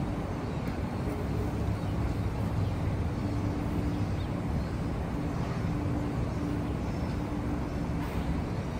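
Steady low rumble of street traffic, with a faint hum that comes and goes.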